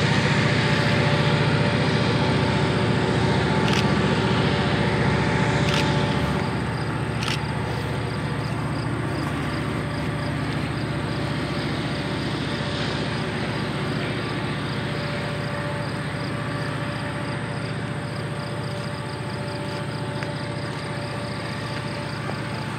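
Northshore Mining diesel-electric locomotive working a train of ore cars: a steady engine drone that drops off and grows quieter about six seconds in. Three sharp clicks come in the first eight seconds.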